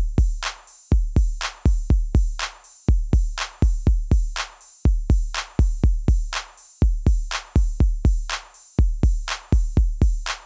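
Background music: an electronic beat with a deep kick drum and sharp, crisp hits in a steady repeating pattern.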